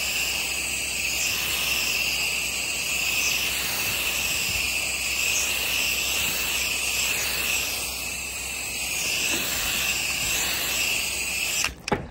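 Pressure washer wand spraying water onto wet deck boards: a steady hiss of the jet, its tone wavering slightly as the spray sweeps across the deck. The spray stops abruptly near the end.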